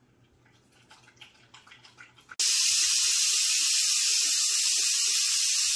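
Chefman electric pressure cooker venting steam through its pressure-release valve after cooking: a loud, steady hiss that starts suddenly about two and a half seconds in.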